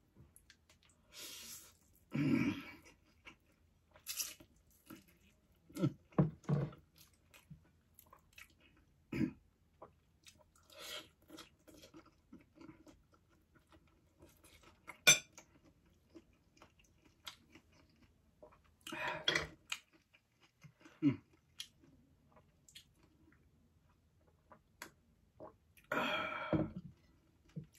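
Close-miked chewing and slurping of spicy noodles: wet mouth clicks, with a few louder slurps spaced through the stretch. There are also light clicks of a fork against the plate.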